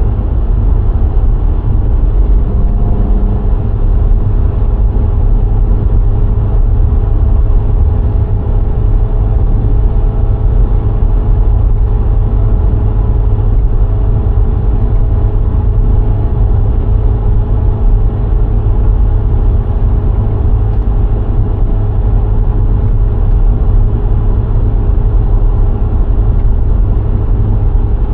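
A VW Golf IV 1.6's four-cylinder petrol engine and tyres on the road while the car drives along at a steady pace. There is a heavy, even low rumble with a faint engine hum, unchanging throughout.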